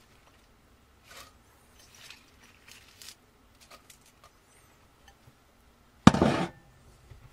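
Faint rustles and soft ticks as spinach leaves are dropped by hand into a stainless steel pot. Then a brief, loud crackling clatter about six seconds in.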